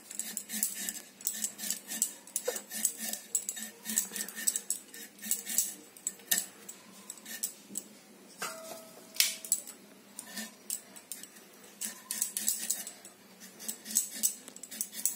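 Hog plums being peeled on a boti's curved iron blade: quick, irregular scraping clicks as the blade shaves the firm green skin off the fruit.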